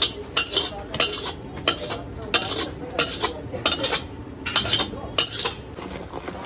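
Metal spatula scraping the inside of a large iron kadai, clearing off sticky candy syrup in quick repeated strokes, about three a second, with a short pause partway through. The scraping stops near the end.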